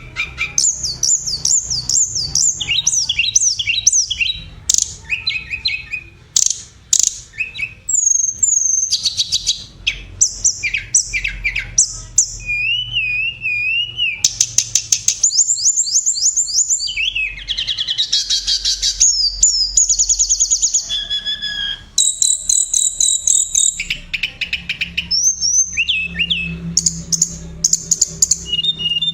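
A tledekan songbird singing a long, varied song of quick chirps, rapid trills and wavering whistles with hardly a pause. A faint steady low hum runs underneath.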